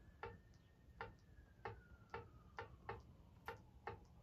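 Faint clicks of a chess app's piece-move sound playing from the TV during a game replay, about two a second at slightly uneven spacing, one click per move.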